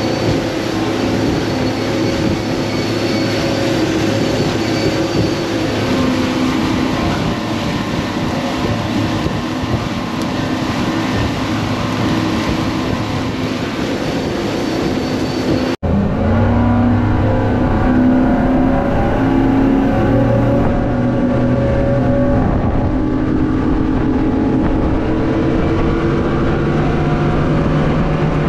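Cobia 350 center console boat running at speed on its outboard engines: a steady engine drone under the rush of water and wind. About halfway through the sound cuts abruptly to a deeper, steadier engine hum with much less hiss.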